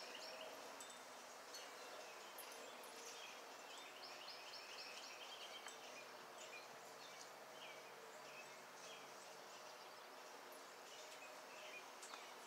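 Faint outdoor ambience with distant birds chirping in short repeated series.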